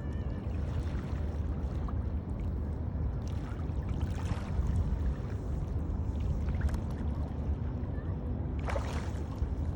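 Sea water sloshing and splashing around people in the water, over a steady low rumble, with louder splashes about four seconds in and near the end.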